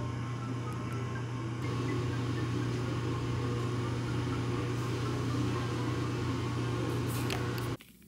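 Steady low machine hum, cutting off abruptly near the end.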